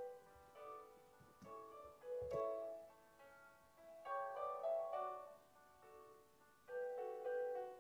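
Slow keyboard music: held piano-like chords in phrases that swell and fade every couple of seconds.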